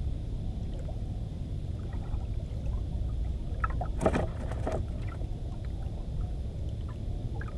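Steady low rumble of wind and sea water around a small fishing boat, with a brief clatter of knocks about four seconds in.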